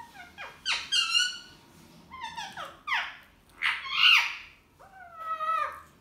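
Ringneck parrots squawking at each other in an argument: a run of loud calls, each sliding down in pitch, coming in bursts roughly once a second.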